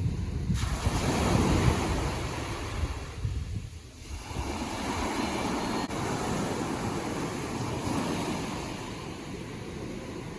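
Ocean waves surging and washing on the shore: one wave rushes in about half a second in, and after a short lull near four seconds another comes in and keeps washing. Wind rumbles on the microphone underneath.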